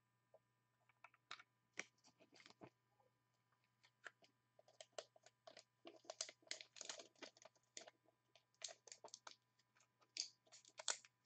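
Faint, irregular clicks and crinkles of plastic being handled: a trading card being fitted into a clear hard plastic card holder.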